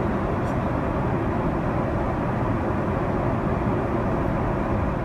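Boeing 777 cabin noise in flight: a steady, even rush of airflow and engine noise.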